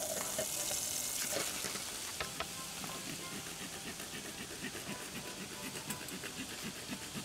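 Raw minced meat sizzling as it fries in a hot, oily metal pot, with a few sharp clicks in the first couple of seconds.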